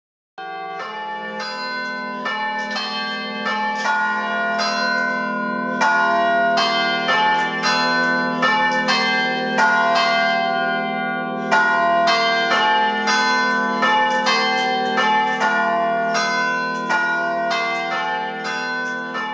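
Church carillon bells played by hand from a bar of pull-handles wired up to the bells, ringing out a tune. Quick strikes on different bells, several a second, sound over the lasting hum of the deeper bells. The playing starts about half a second in.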